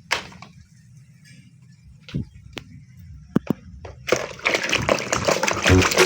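A few separate light knocks and clicks, then from about four seconds in water splashing steadily.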